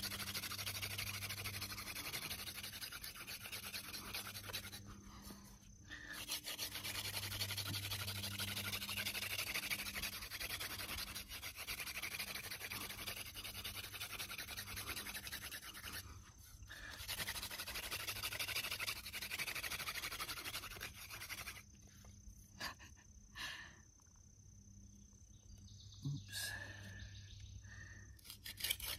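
Hand-drill friction fire: a dry sunflower-stalk spindle spun between the palms, grinding into a woody conch bracket fungus (Fomitopsis ochracea) hearth with a steady rasping rub. The rub breaks off briefly twice, when the hands go back to the top of the spindle, and goes much quieter for the last several seconds.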